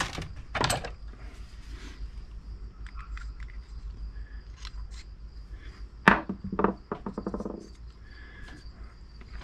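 A chainsaw piston and other small metal parts handled on a workbench: light knocks and clicks as the piston is picked up and turned over, with a sharp click about six seconds in followed by a brief rattle.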